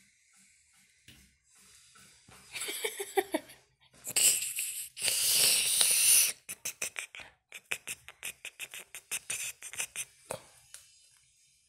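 Close rustling and scuffing as kittens are played with: a short wavering pitched sound about two and a half seconds in, a loud rush of scuffing noise around four to six seconds, then a fast run of scratchy rustles, several a second.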